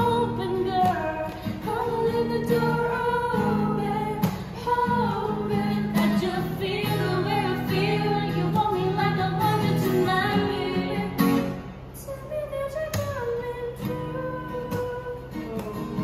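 A woman singing a song while strumming an acoustic guitar, getting somewhat quieter in the last few seconds.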